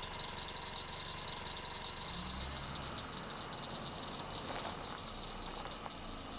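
Night insects chirping in a fast, steady trill, with a low rumble underneath that fades about halfway through.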